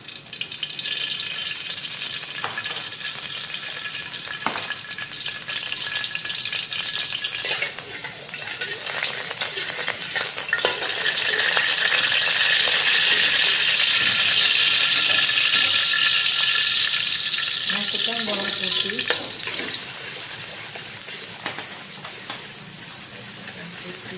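Hot oil sizzling in a wok as chopped garlic fries, stirred and scraped with a metal spatula that makes small taps against the pan. The sizzle swells loudest about halfway through, then eases.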